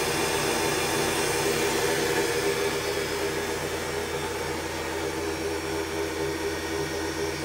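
Belt-driven spindle and VFD-driven motor of a CNC-converted Grizzly G0704 benchtop mill running at about 5,000 rpm: a steady whir with a constant hum.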